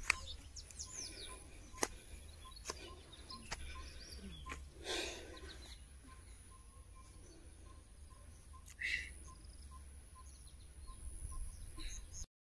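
Outdoor countryside ambience: birds chirping now and then over a low steady rumble, with scattered light clicks in the first few seconds.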